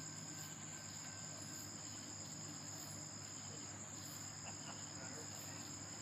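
A chorus of night insects, such as crickets, trilling in one steady high-pitched drone, with a faint steady low hum underneath.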